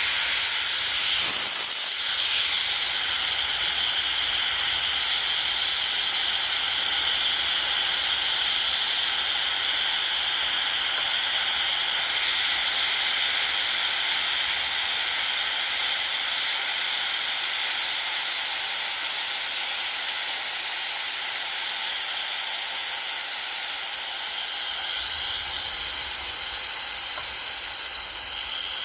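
Compressed air hissing steadily out of a California Air Tools 10-gallon compressor tank through a fully opened 1/4-inch ball valve as the tank drains. The hiss slowly softens as the pressure falls, with one brief tick about a second in.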